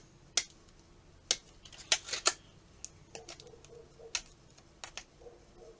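Sharp plastic clicks and taps from handling an action figure's packaging and accessory, a few scattered knocks with a cluster of three about two seconds in.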